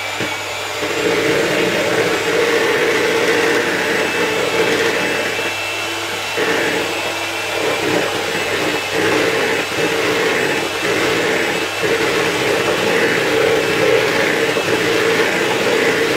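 Electric hand mixer running with a steady motor hum, its beaters creaming butter and caster sugar in a plastic bowl.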